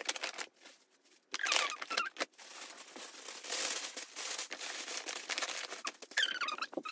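Tissue paper crinkling and rustling as it is handled and tucked into a paper gift bag, with a few short high squeaks about a second and a half in and near the end.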